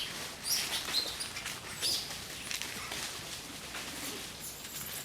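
Short high-pitched chirping calls, several in the first two seconds and sparser after, over a steady outdoor hiss.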